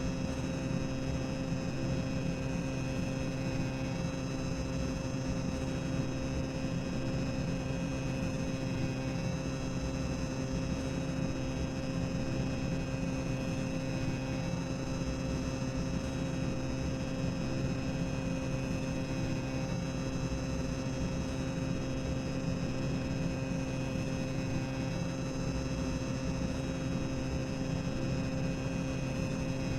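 Boiler-room machinery ambience: a steady low rumble with a constant droning hum, unchanging throughout.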